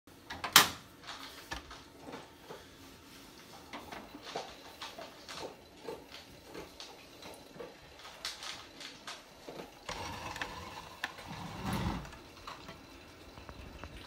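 Hotpoint WMFUG 942 front-loading washing machine turning its drum with a wet load: irregular soft knocks and clicks as the clothes tumble. A sharp click comes just after the start, and a louder, steadier stretch of machine noise comes near the end.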